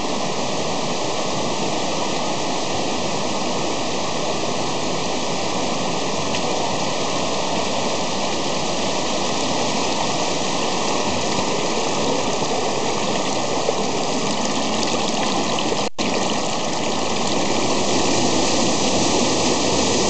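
Rocky mountain stream rushing over and between boulders, a steady even rush of water. It breaks off for an instant about four seconds before the end and comes back slightly louder.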